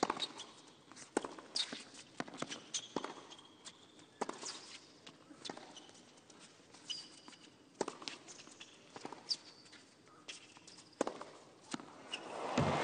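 Tennis rally on a hard court: sharp racket strikes and ball bounces, with short sneaker squeaks, over a hushed stadium crowd. Crowd applause swells up near the end as the point is won.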